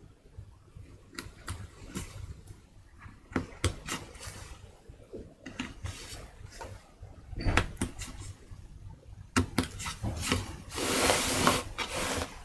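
Handling noise at a woodcarving bench: scattered light clicks and knocks as fingers and a carving knife work on a wooden printing block, with about a second of louder rubbing noise near the end.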